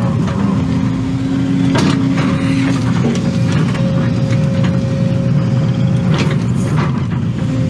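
Case excavator's diesel engine running steadily under working load, with a steady hydraulic whine that holds for a couple of seconds at a time as the boom and bucket move. A few sharp clunks, near 2 s, 3 s and 6 s in.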